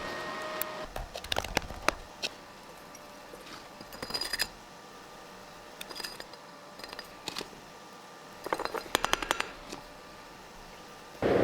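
Small metal parts clinking and rattling in several short bouts of sharp clicks, like pieces of metal being handled and shifted against each other. The densest rattle comes near the end.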